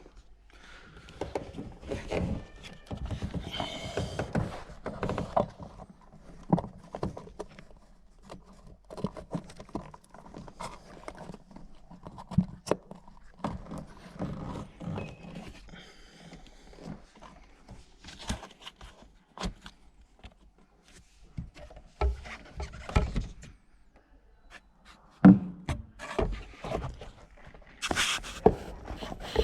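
Irregular knocks, clicks and scraping of parts and tools being handled during hands-on car repair work, with a few louder thumps near the end.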